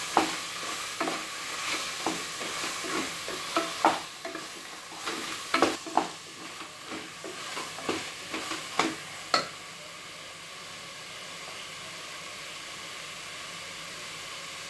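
Wooden spatula stirring chicken in an aluminium pressure cooker, knocking and scraping against the pot over a steady sizzle of frying masala. The knocks stop about two-thirds of the way through, leaving just the sizzle.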